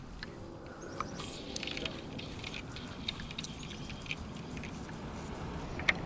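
Faint rustling with scattered light ticks and scrapes: handling noise of a fly rod, reel and line.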